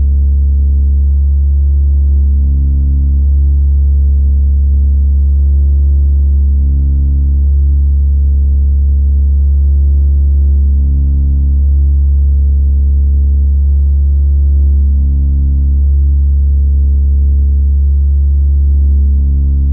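No-input mixer feedback: a loud, steady low hum with higher tones layered over it that pulse on and off in a repeating cycle about every four seconds.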